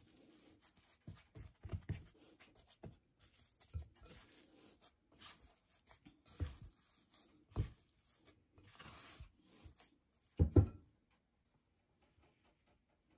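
Silicone spatula scraping and folding sticky dough against a glass mixing bowl, with soft irregular thuds, ending with a couple of louder knocks about ten seconds in.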